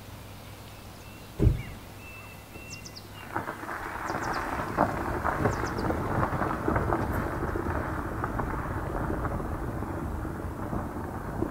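A single sudden low boom about a second and a half in, then a dense, steady crackling noise, like heavy rain, from about three seconds in.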